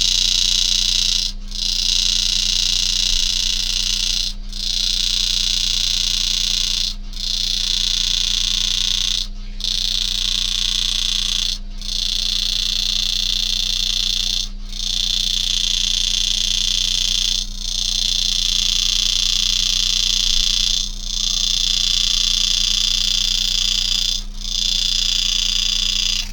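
Power engraving handpiece running with a high buzzing hiss as its graver cuts a spiral into a coin, stopping for a moment every two to three seconds between cuts.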